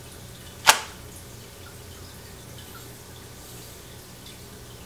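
A single sharp click about two-thirds of a second in as the AGV K3 SV helmet's internal sun visor is dropped with its side slider, followed by a low steady hum with a couple of faint ticks.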